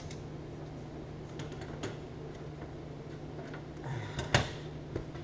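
Metal case of a CCTV DVR recorder being handled and set down on a wooden table: a few light clicks, then a cluster of knocks about four seconds in with one sharp loud knock, and a smaller knock about a second later.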